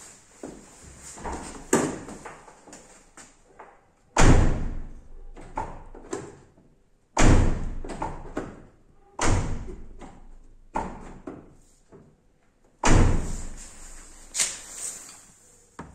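Car door slammed shut four times, each a heavy thud with a short ringing tail, with lighter knocks in between. The closing sound of an uninsulated car door is set against that of a door fitted with sound-deadening insulation.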